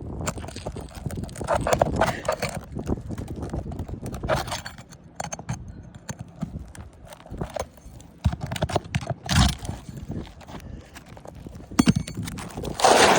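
A roof shingle being worked loose and pulled off: irregular knocks and scraping, with a few louder rasping patches.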